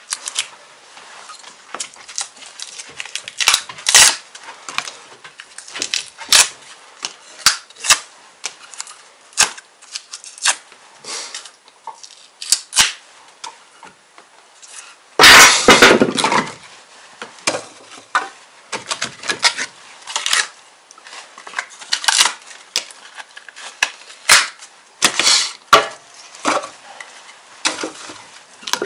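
Irregular clinks and knocks of things being handled, with one loud clatter about fifteen seconds in.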